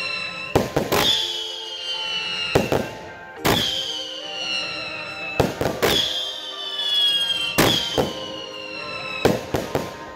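Consumer fireworks firing: sharp bangs, often in pairs, about every two seconds, each group followed by a falling whistling tone, over background music.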